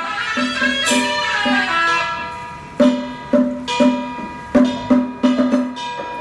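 Traditional temple ritual music: a plucked string instrument picking short, repeated notes in a steady rhythm, with a bright crash about a second in and a high tone held underneath.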